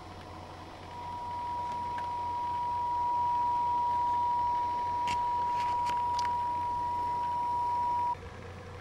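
Steady pure mid-pitched tone from a kit-built audio function generator playing through headphones. It grows louder over the first few seconds as the volume is turned up, has a few light clicks just past the middle, and cuts off suddenly near the end.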